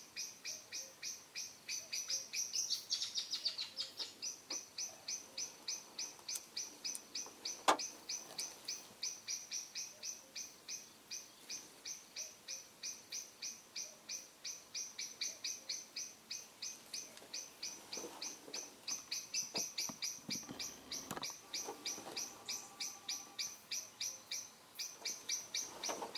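A small animal's high-pitched chirp repeated steadily about three times a second, with one sharp click about eight seconds in.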